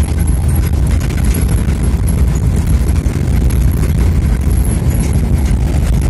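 A vehicle driving along an unpaved dirt road: a steady, loud low rumble of engine, tyres and wind.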